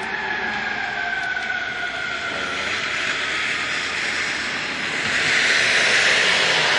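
Fire engine siren winding down in a slow falling wail over the first few seconds, over the rush of the passing truck. The rushing noise grows louder about five seconds in.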